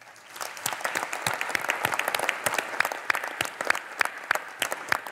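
Audience applauding, many hands clapping together with some sharp individual claps standing out; it swells up within the first half second and then holds steady.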